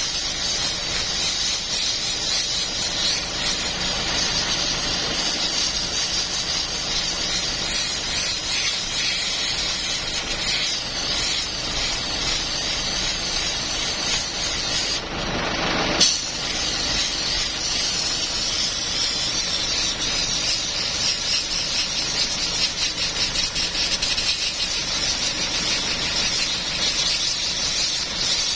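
A steady hissing spray, with a single sharp click about sixteen seconds in.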